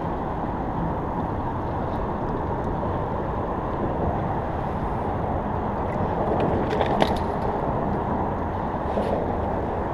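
Steady rush of road traffic crossing the highway bridge overhead, with a few small clicks about seven seconds in.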